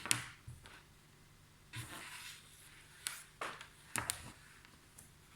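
Scattered light clicks and brief rustles of hands handling a multimeter and its test probes, with a sharper pair of clicks about four seconds in.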